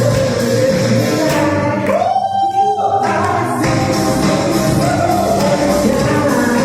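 A man singing over a karaoke backing track, holding long sustained notes.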